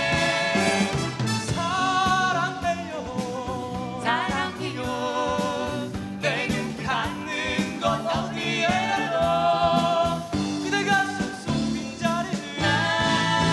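A mixed vocal trio, a woman and two men, singing a song live in several voices at once over acoustic guitar and instrumental backing.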